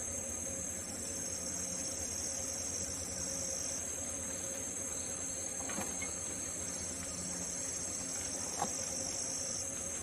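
Insects trilling steadily in a high-pitched chorus, with several overlapping voices and one part starting and stopping. Two faint ticks stand out, the second a little past the middle.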